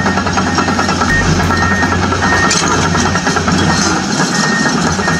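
Steady heavy-machinery engine sound running at an even level, with a short high beep repeating at uneven intervals, as a radio-controlled toy excavator tracks along.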